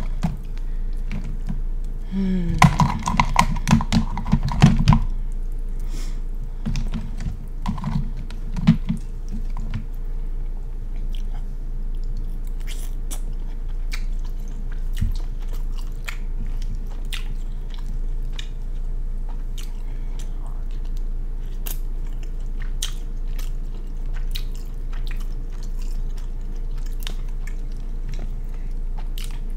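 Close-miked mukbang eating sounds: chewing, lip-smacking and small crunches of a person eating a seafood boil of king crab legs. The sounds come as scattered short clicks, with a louder flurry about two to five seconds in.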